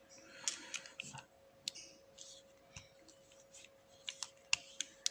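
Irregular light metallic clicks and ticks from a padlock and small lockpicking tools being handled, with a few sharper clicks near the end. A faint steady hum runs underneath.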